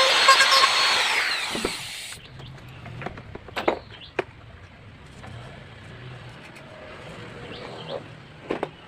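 Power tool running with a steady whine as it cuts wood, then switched off about a second in, its pitch falling as the motor winds down to a stop. A few light knocks follow, the loudest near the end.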